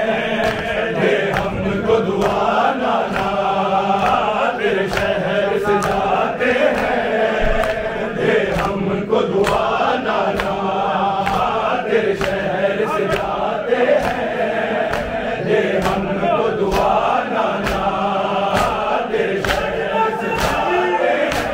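A crowd of men chanting a noha (Urdu lament) together, with a steady beat of matam, hands striking chests, a little faster than one strike a second.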